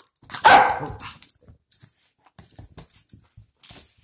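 A Cavalier King Charles spaniel barks once, loudly, about half a second in while playing tug for a stuffed toy. Faint scuffling and small clicks of the play follow.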